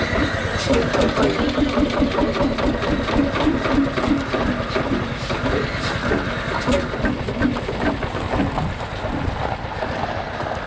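Single-cylinder hot-bulb semi-diesel engine of an HSCS G-35 tractor running, with rapid, even pops several times a second.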